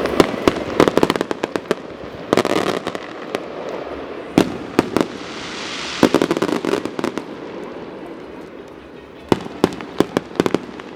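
Fireworks display going off: sharp bangs and rapid crackling reports in irregular clusters, with a rushing hiss about five to six seconds in and a last burst of bangs near the end.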